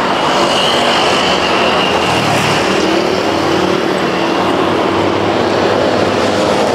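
Road traffic on a city street: cars, a van and motorbikes driving past, a steady, loud mix of engine and tyre noise.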